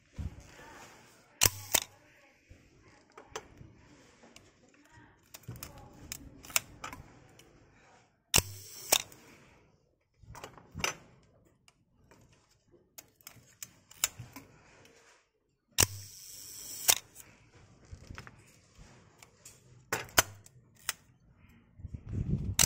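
Asahi Pentax 35 mm SLR's focal-plane shutter and mirror firing several times, each release a sharp mechanical click. At the slower settings the opening and closing are heard as separate clicks: once about half a second apart, and once about a second apart with a buzz between them. Smaller clicks and handling noise from working the camera's controls fall between the releases.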